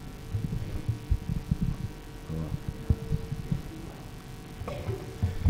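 Microphone handling noise on a conference sound system: soft, irregular low thumps over a steady hum.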